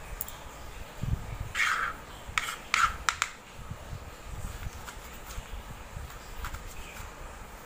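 A knife cutting and scraping bitter gourd on a hard surface: a short scrape about a second and a half in, then a few sharp clicks, with faint handling after.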